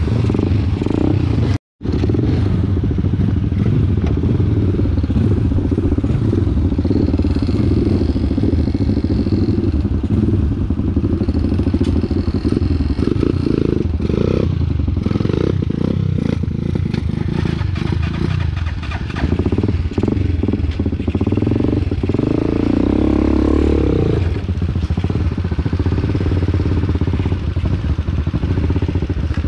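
Trail motorcycle engine running as it is ridden, a dense, steady rumble that shifts irregularly; the sound cuts out for a moment about two seconds in.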